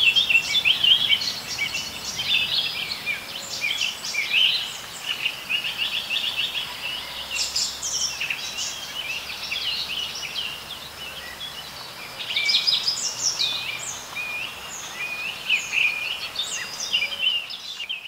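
Outdoor birdsong: several birds singing at once in dense, overlapping runs of quick high chirps, over a faint steady background hush.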